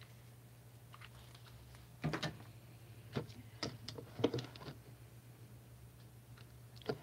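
Light clicks and taps of a hot glue gun and foam craft pieces being handled and set down on a tabletop, in small clusters starting about two seconds in, over a faint steady hum.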